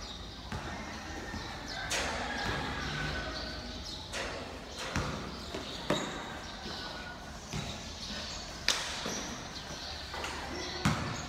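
A basketball bouncing and thudding on the court floor, a handful of sharp thuds at uneven intervals, with players' voices in the background.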